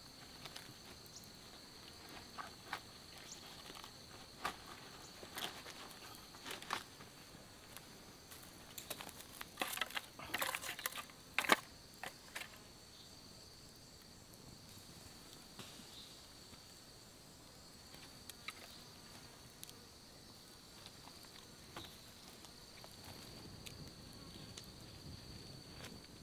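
Steady high-pitched insect drone, with scattered light clicks and knocks over it, bunched together near the middle, where one sharp knock is the loudest sound.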